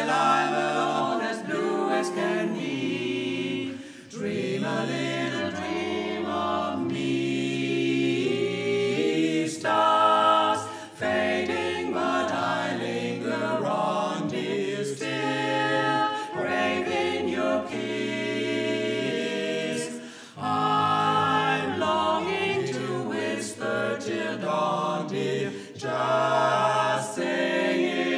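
Barbershop quartet of three women's voices and one man's singing a cappella in close four-part harmony, with brief breaths between phrases.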